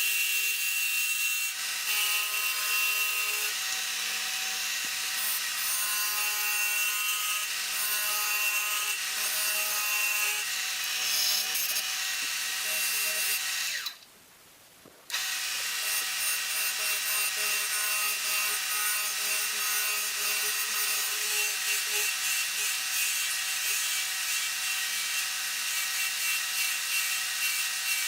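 Wood lathe spinning a Northern Catalpa pencil blank while a turning tool cuts and scrapes the wood, with a steady hum and whine from the lathe. The sound drops out for about a second halfway through, then resumes.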